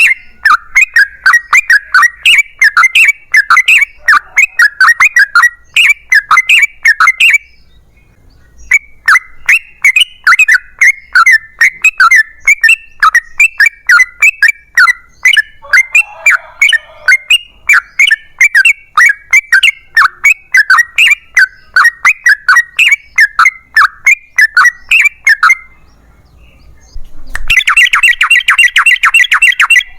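Yellow-vented bulbul (trucukan) singing long strings of rapid, chattering notes, about three a second, breaking off briefly twice, the second time near the end before a faster, denser run of notes.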